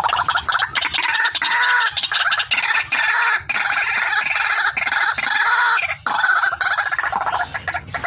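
Female white-breasted waterhen (ruak-ruak) calling, a fast run of repeated notes that barely pauses, as used in a lure recording to draw in other waterhens.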